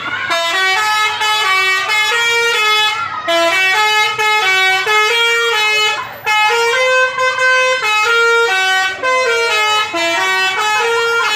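A bus's musical 'telolet' air horn playing a tune of stepped, held notes. It is loud, with two short breaks in the tune.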